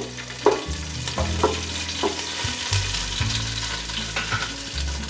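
Green chillies and curry leaves sizzling in hot oil with cumin and mustard seeds while a spatula stirs them against the pot, with several sharp clicks.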